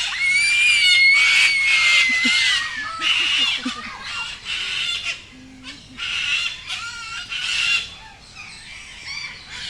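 Cockatoos squawking: a string of harsh screeches, with a long, drawn, whistle-like call through the first few seconds.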